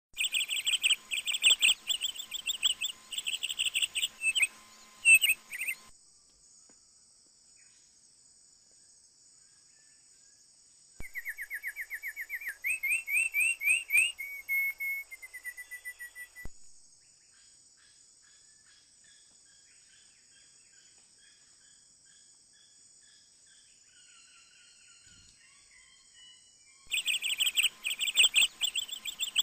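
A small bird calling. Fast runs of sharp, high chirps for the first six seconds, then a rapid trill of sweeping notes around the middle, then soft scattered notes. Loud chirping starts again near the end.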